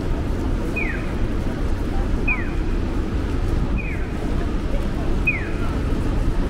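A Japanese audible pedestrian-crossing signal chirping: a short falling electronic tweet repeated about every second and a half, each followed by a fainter echo. It sits over a steady hiss and rumble of rain and city traffic.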